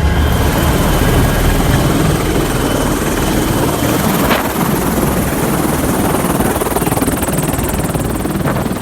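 Helicopter rotor and engine running steadily: a loud, even rushing noise with a low rotor beat underneath.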